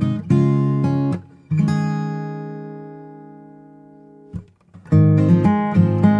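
Background music: acoustic guitar strumming chords. About a second and a half in, one chord is left to ring out and fade for a few seconds before the strumming starts again.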